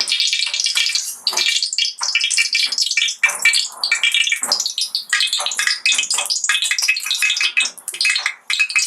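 Kadhai on the gas stove crackling and sizzling steadily as three spoons of oil go in.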